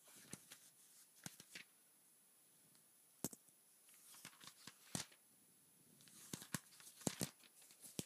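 Pages of a paperback textbook being leafed through: faint paper flicks and rustles in several short clusters, with a few sharper snaps as pages turn over.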